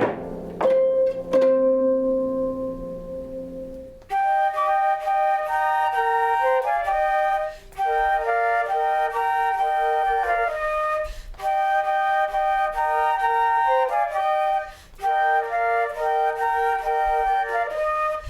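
Holiday instrumental music: a few plucked chords ring out and fade, then about four seconds in a flute begins playing a melody of held notes with short breathing pauses.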